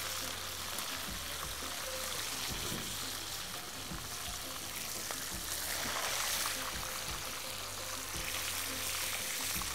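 Chicken pieces sizzling steadily in oil in a frying pan as they brown, turned with tongs.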